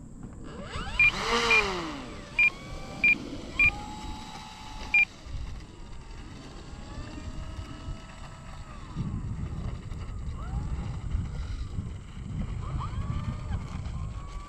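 Electric RC plane's motor and propeller whining in flight, the pitch bending up and down as it passes and turns, over a low wind rumble on the microphone. Six short high beeps sound in the first five seconds.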